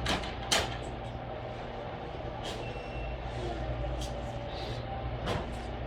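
A steady low hum with several short sharp clicks and rustles scattered through it, and a faint thin beep-like tone about halfway through.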